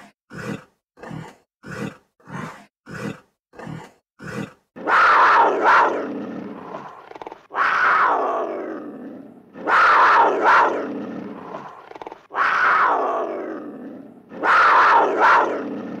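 An animal calling: a run of short grunts, roughly one every half second, then, from about five seconds in, five long loud calls that fall in pitch, each lasting about two seconds.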